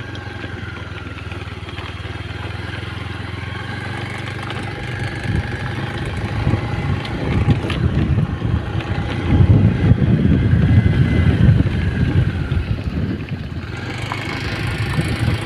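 An engine running steadily at a low, even pitch, with wind rumbling on the microphone that grows through the middle and is loudest about two-thirds of the way in.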